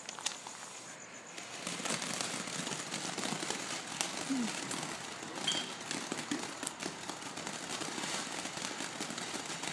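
TNT Fireworks Short Stack fountain burning, a steady hissing spray with crackling pops, growing louder about two seconds in.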